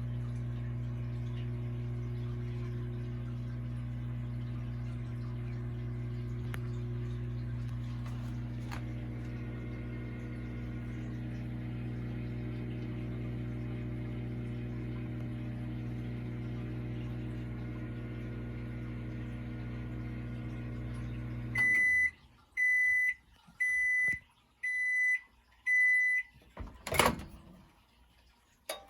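Microwave oven running with a steady low hum that cuts off about three-quarters of the way through. It then beeps five times, about once a second, to signal the end of the cycle, followed by a sharp click.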